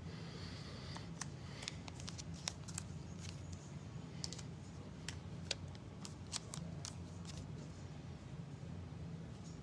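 Irregular light clicks and taps, several a second at times, over a steady low hum.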